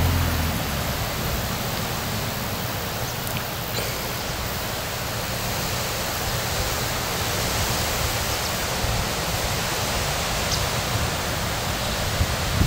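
Steady rushing hiss of wind over the open field and through the trees. A tractor engine's low drone is heard only in the first half second, then drops away.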